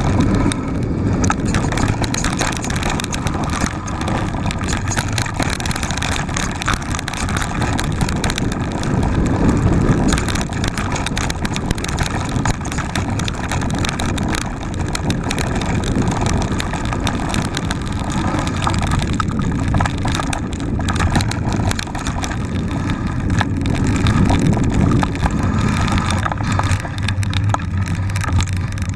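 Mountain bike ridden along a dirt singletrack: a steady rush of wind on the microphone, with knobby tyres rolling over dirt and a constant rattle and clatter from the bike over the bumps.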